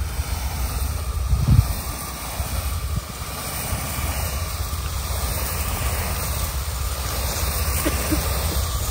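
Small rope-start engine driving a pesticide spray pump, running steadily, with wind buffeting the microphone.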